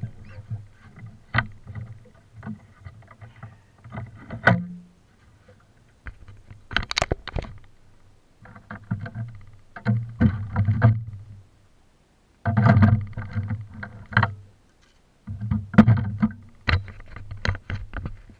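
Handling and bumping noise close to the microphone: irregular knocks and rustles mixed with low rumbling surges that come and go.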